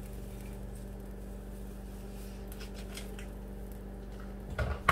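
Steady low electrical hum in a kitchen, with a few faint light ticks as seasoning is shaken from a plastic container into the pot, then two sharp clacks near the end as a seasoning container is set down.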